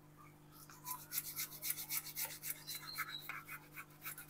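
Boiled potatoes being grated on a hand grater: quick, repeated scraping strokes, starting about a second in.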